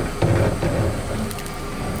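A car creeping slowly forward on asphalt: a low rumble, loudest in the first second, with a few faint crackles from grit under the tyre.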